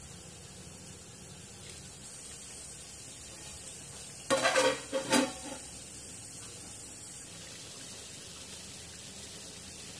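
Steady low sizzle of chicken gravy simmering in a steel pan. About four seconds in, a steel plate used as a lid clanks against the pan's rim in a quick burst of metal knocks lasting about a second.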